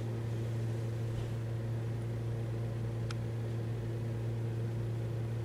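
A steady low machine-like hum with a few faint higher tones over it, and one short click about three seconds in.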